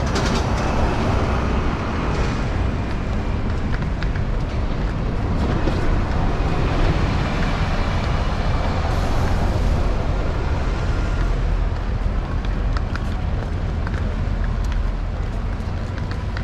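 City street traffic with double-decker buses passing close by: a steady low rumble of engines and tyres under general street bustle.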